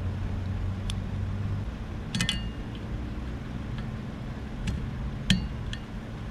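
Light clicks and clinks of a car wiper blade's metal and plastic parts being handled and taken apart: about half a dozen sharp, briefly ringing clicks, the loudest about five seconds in, over a steady low hum.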